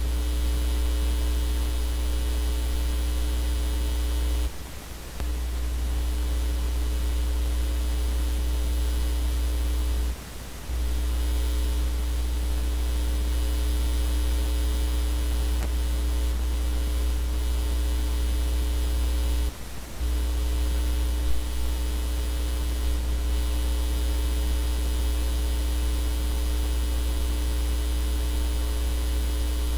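Steady electrical mains hum and buzz with a hiss on top, such as a recording chain picks up. It cuts out briefly three times.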